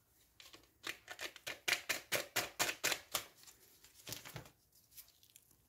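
Quick light taps and crinkles, about five a second for a couple of seconds and then a few more: a paper sachet of baking powder being tapped and shaken out over a bowl of flour.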